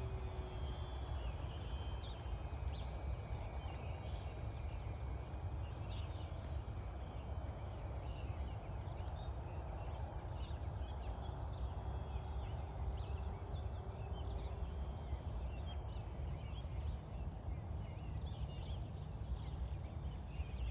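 Steady low rumble of wind on the microphone, with faint bird calls chirping throughout.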